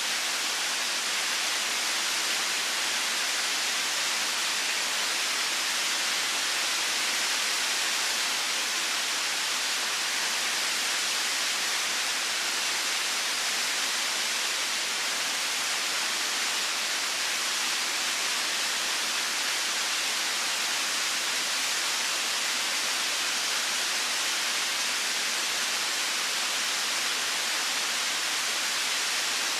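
Waterfall rushing in a steady, even hiss with little low rumble.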